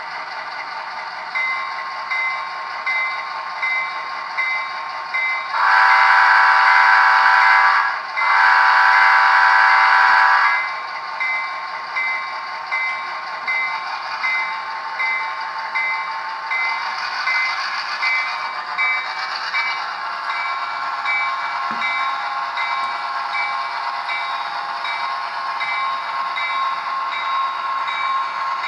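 Locomotive whistle sounding two long blasts of about two seconds each, set within a steady rhythmic chuffing of the running engine, a little over one beat a second.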